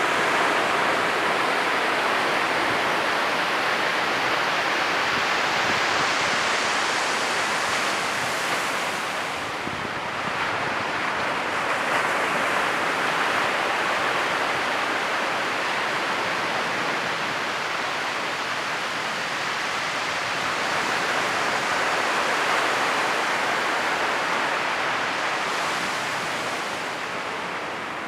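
Ocean surf breaking on a beach: a continuous rushing wash that swells and eases over several seconds as the waves come in and draw back.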